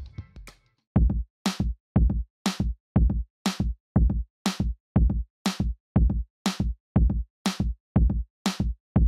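Background music: the previous track fades out, and about a second in a steady electronic drum beat starts, two strong hits a second with lighter hits between.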